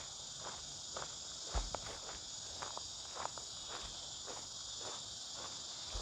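Steady high-pitched insect chorus, with footsteps crunching at an uneven pace and a couple of soft thuds underneath.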